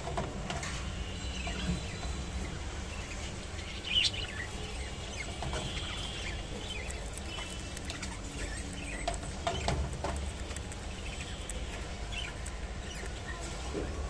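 A budgerigar nibbling and tearing fresh water spinach leaves: scattered small beak clicks and leaf crackles, with a sharper snap about four seconds in. Faint bird chirps come through now and then over a steady low hum.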